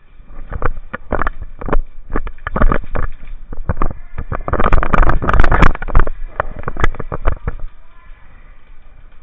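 Airsoft gunfire during indoor play: a rapid, irregular string of sharp cracks and knocks, densest about halfway through.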